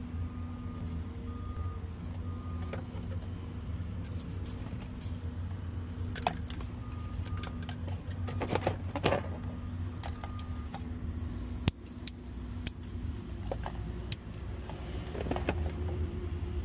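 Wires and a plastic connector being handled, with rustling and light rattles, over a steady low engine hum from a running vehicle. Past the middle, a handheld butane torch's igniter clicks four times and the torch hisses.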